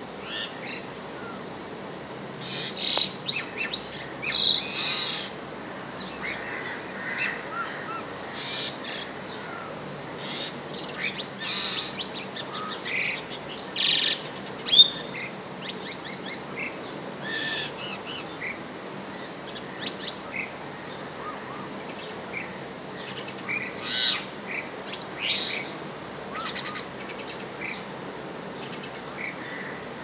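Pied mynas (Asian pied starlings) calling in irregular bursts: a varied run of whistled notes that glide up and down, mixed with sharp clicks. The busiest stretches come near the start, in the middle and late on, and a single sharp click near the middle is the loudest sound.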